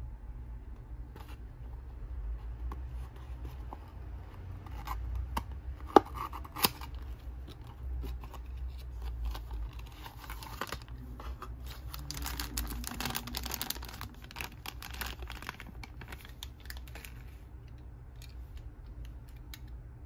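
A small cardboard toy-car box being handled and opened by hand: card rustling and scraping. Two sharp clicks about six seconds in are the loudest sounds. They are followed by a long stretch of rustling and scraping as the die-cast model car is slid out of the box.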